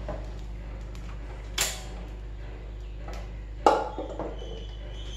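Aluminium pressure pan lid lifted off and set down: two metal clanks, about one and a half seconds in and about three and a half seconds in, the second louder and ringing on briefly.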